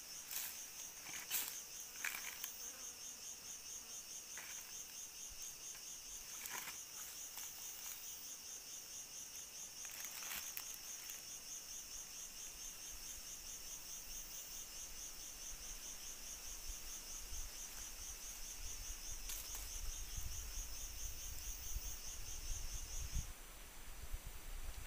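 An insect, a cricket or cicada, calling in a steady, high-pitched, finely pulsing trill that stops abruptly near the end. A few sharp clicks sound over it, mostly in the first half.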